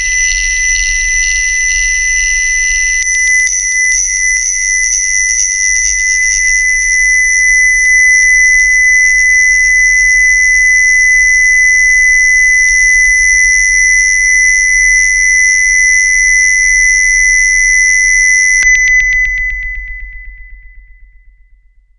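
Loud synthesized electronic drone: two steady, piercing high tones over a low hum. The texture shifts about three seconds in. Near the end the upper tone cuts off suddenly and the rest fades away over about three seconds.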